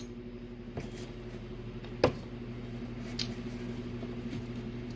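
A low steady hum with a few faint, scattered small clicks, and one sharper click about two seconds in.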